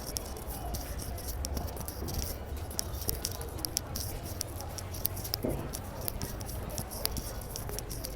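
City street ambience on foot: a steady low rumble under distant voices, with frequent sharp clicks and taps scattered irregularly throughout.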